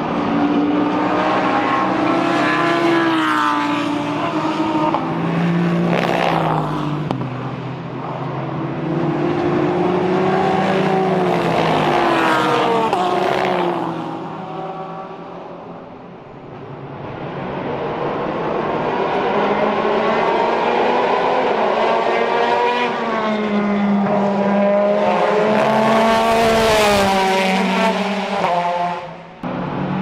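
GT race car engines at racing speed, their pitch climbing and dropping with the gear changes as cars come through a corner one after another. The sound fades about halfway, builds again as more cars approach, then cuts off suddenly near the end.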